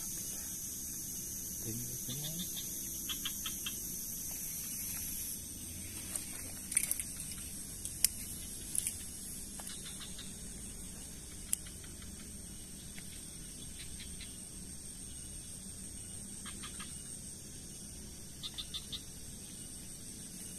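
Outdoor wetland ambience: a steady high-pitched buzz that stops about five seconds in, then a few sharp clicks and scattered short chirps.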